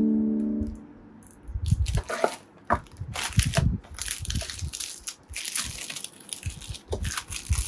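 Plastic wrap crinkling and rustling as blocks of craft clay are unwrapped and handled on a table, with soft knocks of the clay against the tabletop. Background music stops about a second in.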